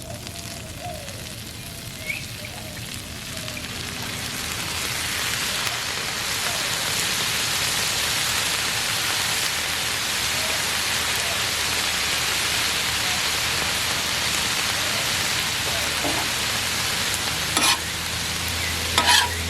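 Ground beef, bell peppers and onions sizzling on a hot Blackstone flat-top griddle. The sizzle swells louder a few seconds in and then holds steady. A couple of sharp clicks come near the end.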